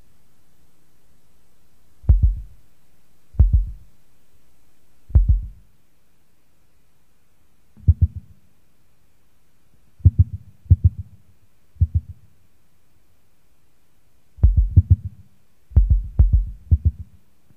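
Noise-tape music: deep, heavy thuds, at first one every second or two, then in quick clusters of two to four, over a faint low hum.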